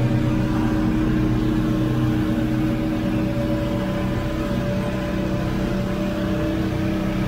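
Steady vehicle rumble with a low hum from the wheeled training cart rolling behind a sled-dog team through a corrugated metal culvert.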